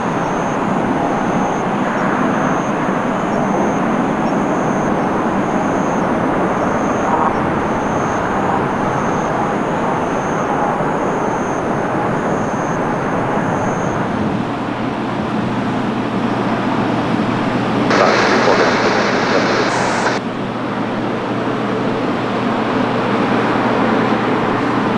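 Jet airliner engines running loud and steady, a broad rushing noise. About two-thirds of the way through the sound brightens and swells for a couple of seconds, then settles again.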